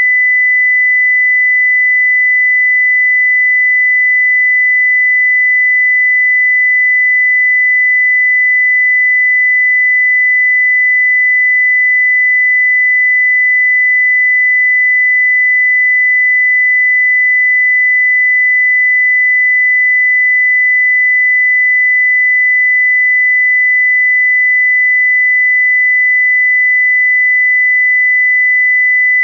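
Electronic fire alarm tone: a single steady high-pitched tone held without a break. It is the alarm signal used to set off the acoustic mode of a Dorgard Pro fire door retainer's transmitter.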